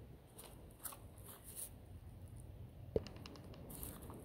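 Faint rustling and handling noises, with one sharp click about three seconds in.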